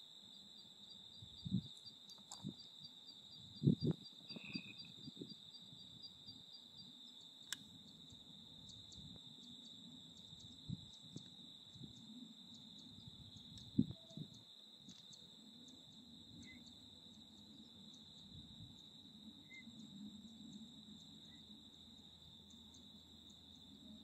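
Crickets trilling steadily on one high pitch, with a second insect chirping in quick even pulses, about four a second, for the first several seconds. A few low thumps break in, the loudest about four seconds in.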